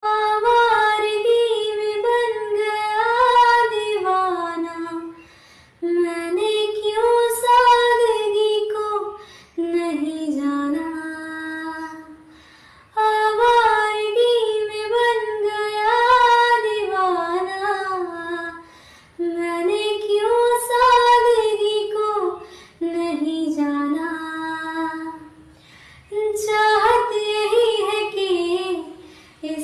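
A high female voice singing a slow, romantic song melody with vibrato, in phrases of a few seconds separated by short breaths, with no accompaniment audible.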